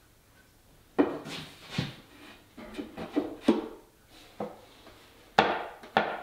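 Knocks and bumps of a cherry-wood cabinet carcass being shifted and set against the workbench by hand: about six sharp, irregular wooden knocks, the loudest two near the end.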